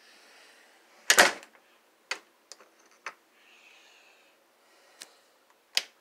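A glass-paned wooden door shut with a thud about a second in, followed by several sharp clicks of its knob and latch.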